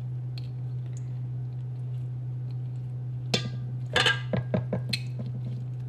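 Glass jar knocking and clinking against a stainless-steel bowl while shredded red cabbage is scooped and packed into it by hand, a few sharp knocks coming together after about three seconds. A steady low hum runs underneath.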